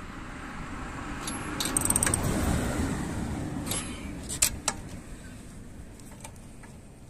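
Metal clinks of a ratchet socket wrench and steel lug bolts on a spare wheel's hub, in a cluster about two seconds in and a few sharp ones around four and a half seconds in. Under them a vehicle's noise swells and fades.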